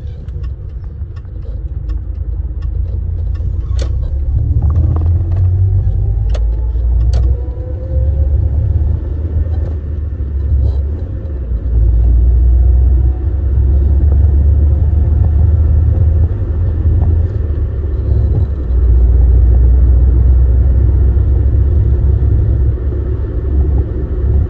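Toyota Carina being driven, heard from inside the cabin: a heavy low rumble of engine and road noise, with the engine note rising as the car picks up speed over the first several seconds. The level dips briefly twice, near the middle and about three quarters of the way through, then comes back louder.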